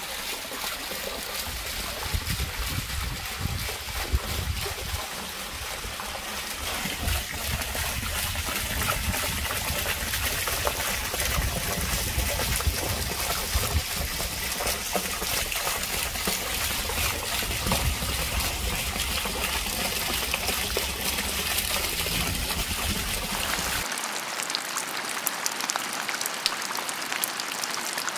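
Water running and trickling steadily, with a low rumble beneath it. Near the end it changes to the lighter, higher splashing of a fountain jet falling back onto water and rock.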